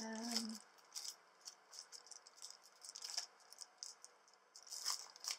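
Clear plastic packaging crinkling and crackling in bursts as hands move and turn the wrapped bundle of papers, with a short vocal hum at the very start.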